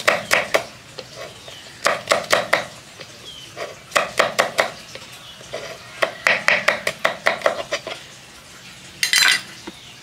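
Kitchen knife chopping chilies on a wooden cutting board, in bursts of several quick strikes with pauses of a second or so between. A short, louder swish just before the end.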